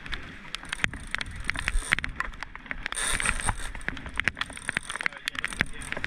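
A boat running through choppy sea: a steady low outboard motor rumble and water washing along the hull, with many sharp, irregular clicks and knocks.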